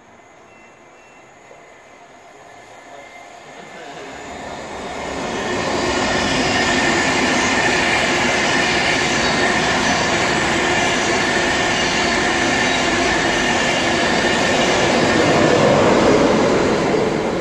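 Virgin Trains East Coast InterCity 225, a Class 91 electric locomotive with Mark 4 coaches, passing through the station at speed. A rush of wheels on rail builds over the first five seconds, stays loud and steady with a high ringing from the rails, and begins to fade near the end as the locomotive goes by.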